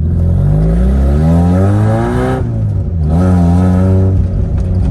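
The 1993 Mazda Miata's 1.6-litre four-cylinder engine is accelerating under way. The revs climb for about two seconds, fall sharply, as at an upshift, then rise again and settle to a steady pitch.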